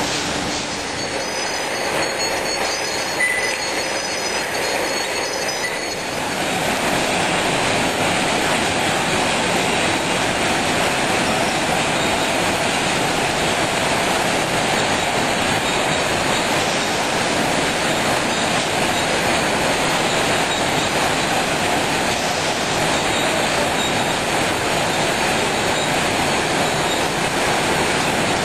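Steady din of container-production machinery on a factory floor: a dense mechanical rattle and hiss that gets louder and fuller about six seconds in, then holds steady.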